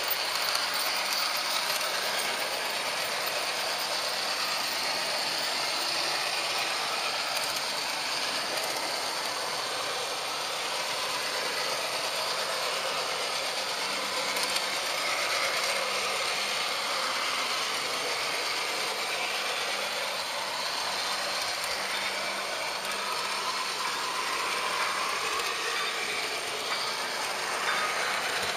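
HO-scale Märklin model train running steadily along metal track: a continuous small mechanical rattle and whir of wheels and gearing.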